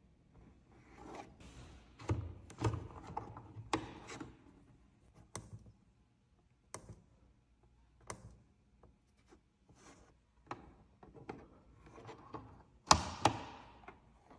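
Handling noises: an irregular series of clicks, knocks and rubbing, with one louder knock near the end.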